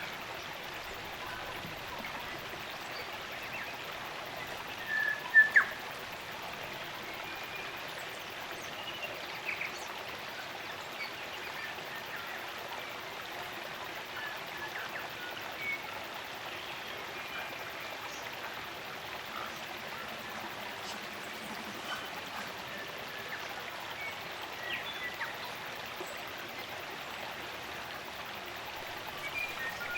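Spring-fed stream running steadily, with scattered short calls of forest birds over it. The loudest is a pair of sharp notes about five seconds in.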